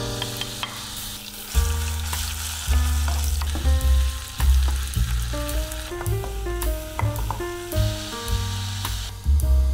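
Grated onion sizzling in hot oil in a nonstick frying pan, stirred now and then with a wooden spatula, over background music with a steady bass line.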